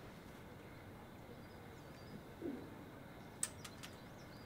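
Quiet room tone with a steady faint hiss. About two and a half seconds in comes a single short, low sound, and near the end a few soft clicks.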